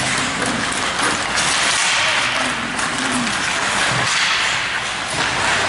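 Ice hockey play on the rink: a steady scraping hiss of skates on the ice, with a few sharp clacks of sticks and puck.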